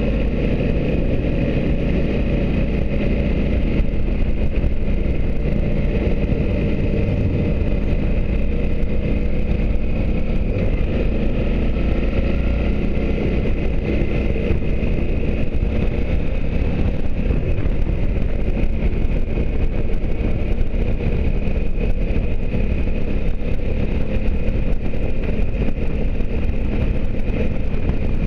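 A motorcycle cruising at a steady speed: its engine running evenly, mixed with wind and road noise.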